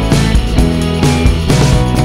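Background music with a steady beat of about two hits a second under held instrument notes.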